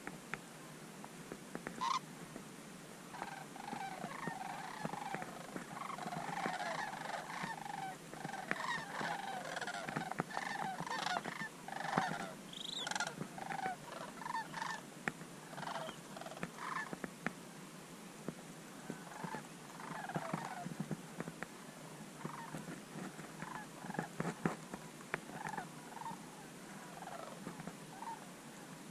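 Sandhill cranes calling overhead: many overlapping rolling, rattling bugles, densest in the first half and thinning out later, with faint light clicks scattered through.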